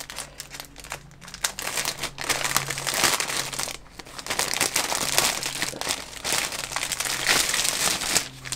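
Clear polythene bag crinkling and rustling in the hands as it is opened, and a plastic model-kit sprue is slid out of it. The crackle runs dense and uneven, with brief lulls about four seconds in and near the end.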